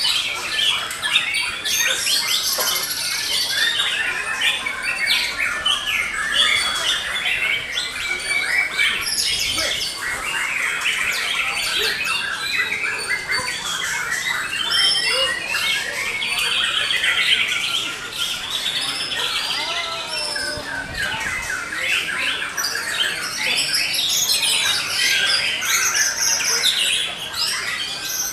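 Several white-rumped shamas (murai batu) singing at once in contest cages: a dense, unbroken mix of loud whistled phrases and fast chattering trills overlapping one another.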